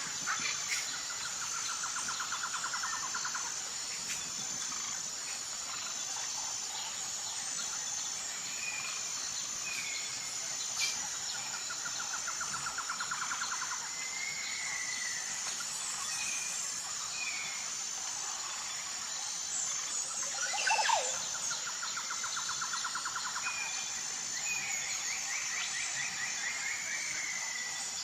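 Tropical jungle ambience: a steady high-pitched insect drone throughout, with short bird whistles and calls and three bouts of rapid pulsed trills. A louder sweeping call comes about two-thirds of the way through.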